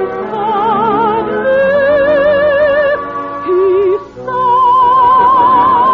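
Operatic soprano singing a slow operetta song with wide vibrato over an orchestra, holding long notes. About four seconds in there is a short break, then a long high note. It has the narrow, dull sound of an early-1950s radio broadcast recording.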